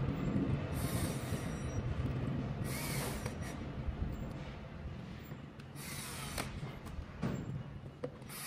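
Cordless drill running while driving screws at a treadmill's drive motor, with a few short clattering bursts as parts are handled.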